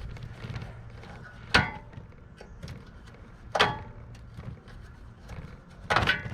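Three sharp metallic clanks about two seconds apart, the last the loudest, as metal tools and heater parts are handled on a workbench, over a low steady hum.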